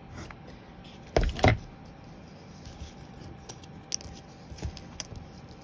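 Handling noises at a work table: two sharp knocks about a second in, then a few faint light clicks and rubbing as the cardboard base and a cut piece of plastic straw are handled.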